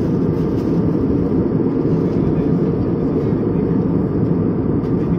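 Steady cabin noise of an Airbus airliner in cruise, engine and airflow noise heard from a window seat, a low even rumble with no changes.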